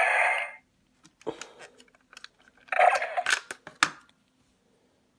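T-Rex Super Charge Morpher toy playing the Stego Charger's sound effect through its small speaker: a harsh, noisy burst at the start and another about three seconds in, with sharp clicks around them. It cuts off about four seconds in.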